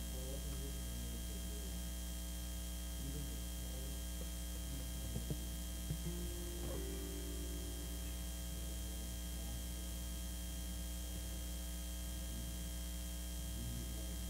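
Steady electrical mains hum with its low buzzing overtones, with a few faint knocks about five to six seconds in.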